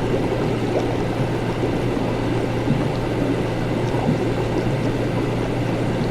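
Laboratory ambience: a steady low hum of equipment under a continuous bubbling, gurgling of liquid.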